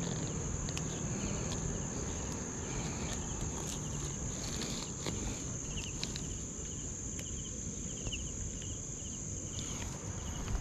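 Crickets trilling steadily in a continuous high-pitched buzz, dropping away right at the end, with a few faint clicks.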